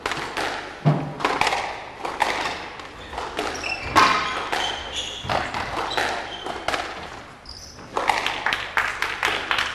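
Quick knocks and thuds with a few short high squeaks: squash play on a wooden court, the ball striking the walls and racket, with footsteps and shoe squeaks on the floor.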